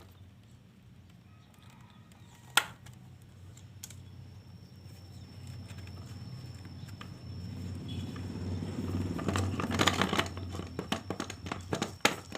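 Mini lathe running with a steady low hum and a thin high whine, a sharp click a couple of seconds in, then crackling, scraping noise that builds and peaks toward the end, broken by a run of sharp clicks.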